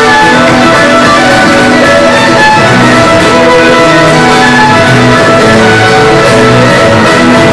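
Live band playing an instrumental passage: fiddle over strummed guitar accompaniment.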